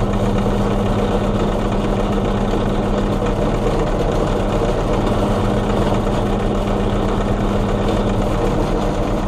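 Benchtop drill press motor running steadily and loudly with a constant hum, as the bit drills small starter indents into a steel knife blank.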